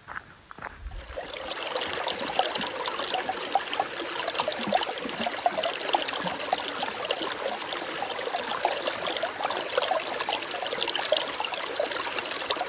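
Running water of a small stream, a steady babbling and trickling that comes in about a second in.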